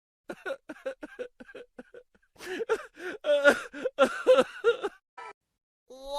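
A person laughing: a quick run of short giggling syllables that turns into louder, fuller laughter from about two seconds in.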